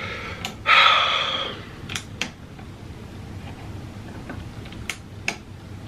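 A short breathy rush about a second in, then a few light clicks and taps of a hand on a Vitamix blender's jar and control panel, over a low steady hum. The blender motor is not running.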